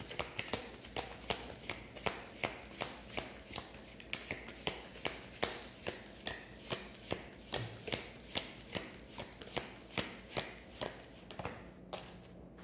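A deck of oracle cards being shuffled by hand, a steady run of short card slaps about three a second that stops about a second before the end.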